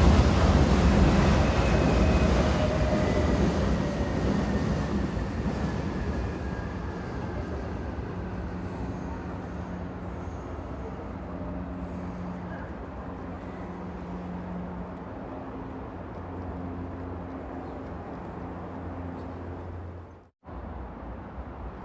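Train running, its loud rumble dying away over the first several seconds with faint whines falling in pitch, then settling to a steady low hum. The sound cuts out briefly near the end.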